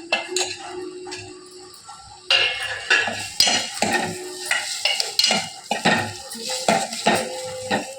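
A spoon stirring okra and onions frying in oil in a pan, with a sizzle underneath. From about two seconds in the spoon knocks and scrapes against the pan in quick, irregular clicks.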